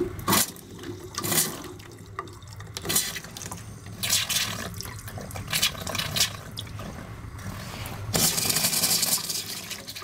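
Hot water running from a wall-mounted faucet into a utility sink and splashing over a hand held in the stream, in uneven surges, with a louder steady gush about eight seconds in.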